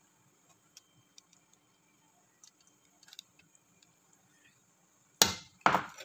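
A few faint taps, then two loud clattering knocks about half a second apart near the end: kitchen handling noise around the foil-lined tray of sauced lamb.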